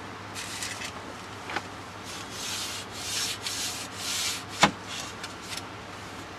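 A hand rubbing back and forth over the slats of a wooden locker floor grate in quick strokes, about two a second, to prepare the wood for its first coat of varnish. One sharp knock sounds about two-thirds of the way through.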